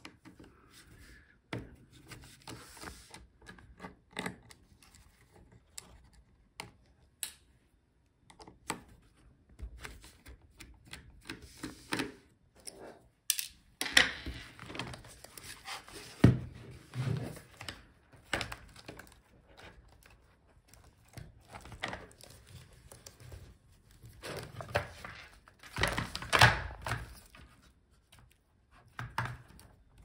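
Scattered clicks, scrapes and knocks of an Alienware x17 R1 laptop being taken apart by hand: a screwdriver working the hinge screws and the display assembly and chassis parts being shifted and set down on a table. Several louder knocks come around the middle and near the end.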